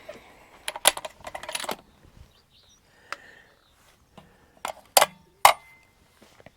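Irregular sharp clicks and clacks of hands handling the rifle and gear: a cluster about a second in and three more, louder ones around five seconds in.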